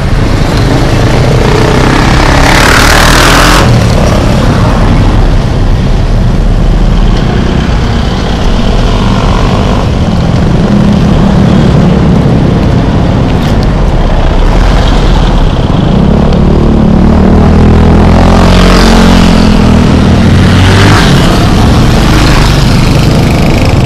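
City road traffic heard from among moving vehicles: cars and motorcycles running close by under a heavy low rumble, with a short burst of hiss about three seconds in and an engine droning louder in the second half.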